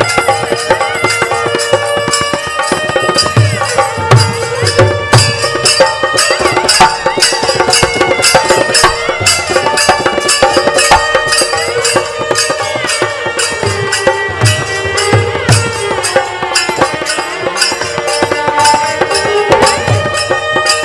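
Sikh kirtan music: long-necked string instruments sustain and glide over a steady hand-drum rhythm played on two-headed barrel drums.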